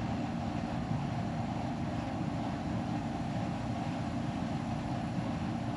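Steady low background rumble with a faint constant hum, unchanging throughout.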